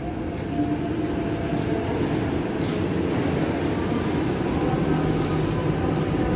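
KRL Commuter Line electric multiple-unit train running: a steady rumble with faint steady tones over it.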